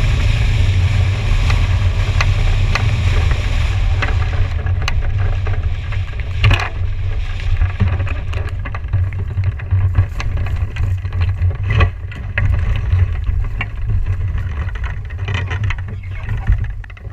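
Wind buffeting a hang glider's wing-mounted camera microphone with a heavy rumble during the final approach and landing. The high rushing hiss of the airflow fades about four to five seconds in as the glider slows. Scattered knocks and rattles follow as the glider comes down on the brush.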